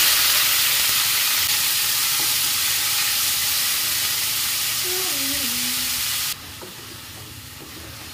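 Finely chopped onion sizzling loudly in hot oil in a kadhai and being stirred with a spatula. The sizzle is strongest just after the onion goes in and eases off slowly, then drops suddenly to a quieter sizzle about six seconds in.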